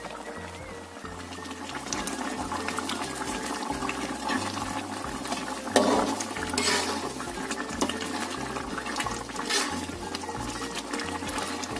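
Chicken simmering in a reducing spiced broth in an aluminium wok, bubbling while a metal spatula stirs and turns the pieces, scraping and knocking against the pan. The loudest scrapes come about six seconds in and again about nine and a half seconds in.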